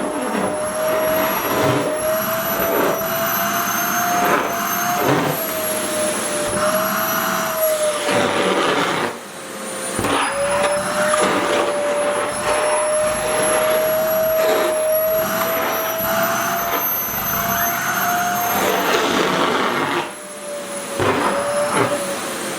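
SHARP EC-KP7F-A vacuum cleaner running with a steady motor whine, its pitch wavering slightly as the nozzle sucks at skirt fabric. The sound dips briefly twice, about nine seconds in and near the end.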